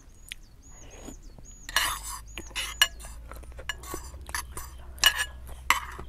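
Spoon and fork clinking and scraping in a bowl of noodle soup while eating, with several short noisy bursts about two seconds in and near the end. A faint high wavering whistle sounds in the first couple of seconds.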